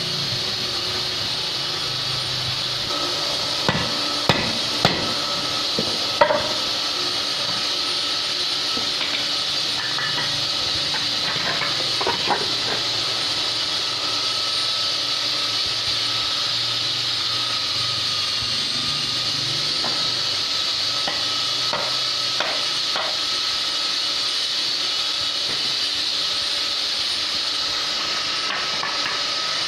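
Steady machine hiss with a faint hum, and a few sharp knocks: four or five close together between about four and seven seconds in, and another around twelve seconds.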